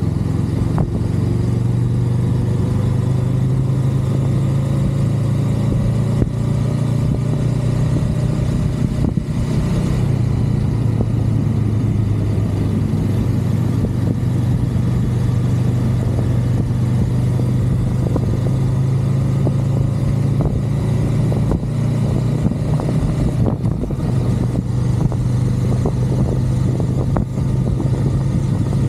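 Honda Rebel 500's parallel-twin engine running steadily while riding at an even pace, a constant low hum with a faint higher tone that climbs slowly over the first dozen seconds.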